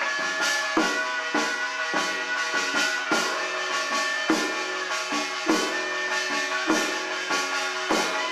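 Korean shaman ritual music of a Jeolla-do ssitgimgut: regular drum strokes, the heaviest about every second and a quarter, under long held melodic tones from accompanying instruments.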